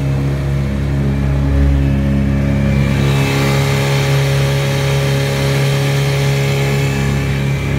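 Old Evinrude 5-horsepower two-stroke outboard motor running steadily at a constant pitch. About three seconds in, a hiss joins it.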